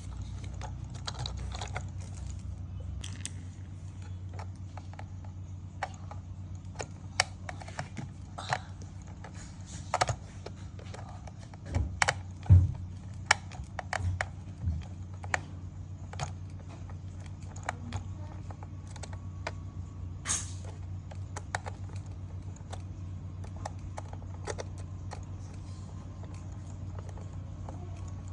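Hard plastic being handled: irregular light clicks and taps, thickest around the middle, over a steady low hum, with a short rustle about twenty seconds in.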